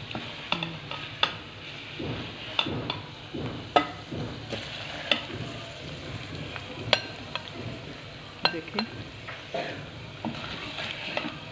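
Metal spoon scooping and scraping a thick, cooked-down curry out of an aluminium pot, knocking and clinking against the pot and a ceramic serving dish in irregular strikes every half second to a second, over a steady low hiss.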